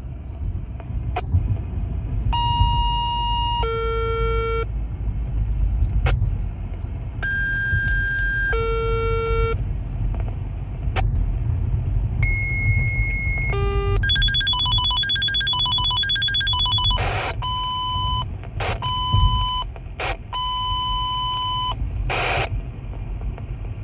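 Fire dispatch alert tones over a radio: two sequential two-tone pages, each a held tone followed by a lower one, then a stepped run, a rapid pulsing alert and three more single tones. Underneath is the car's engine and road rumble inside the cabin.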